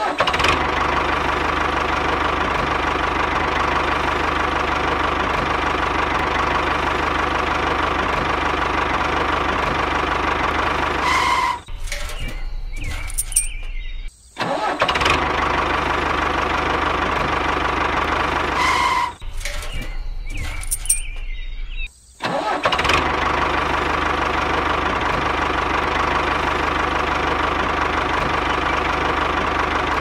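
Tractor engine running steadily. About eleven seconds in, and again about nineteen seconds in, it changes for roughly three seconds to a lower sound without its upper tones, then returns, the same stretch recurring like a loop.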